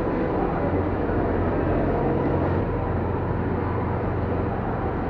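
Ice rink ambience: a steady low hum and rumble, with a haze of noise from the arena.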